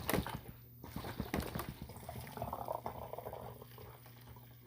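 Water draining from one plastic soda bottle into the other through a bottle cap connector, gurgling and bubbling. A run of sharp clicks from the bottles being handled comes in the first second or so.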